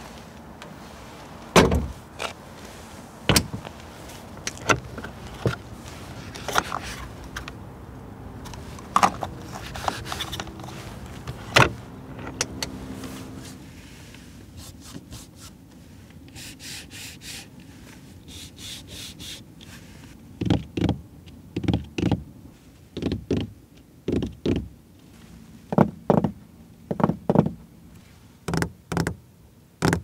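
Porsche 911 GT3 front trunk being handled: sharp clicks and thunks from the lid and latch. Then, after a quieter stretch with faint regular ticking, a run of crisp switch clicks as the centre-console buttons are pressed, about one a second.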